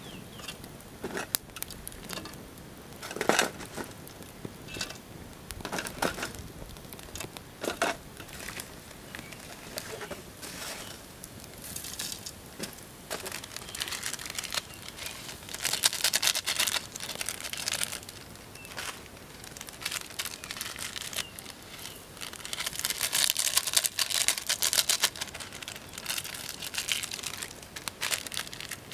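Plastic instant-noodle packets crinkling and being torn open, in two longer stretches, with scattered sharp clicks and knocks earlier on as dry noodle blocks go into an aluminium pot.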